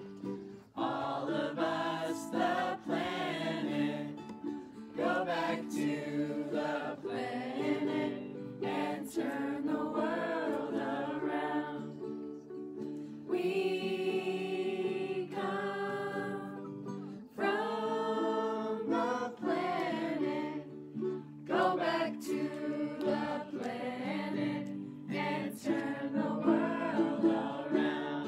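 Several voices singing a campfire song together over a strummed string instrument.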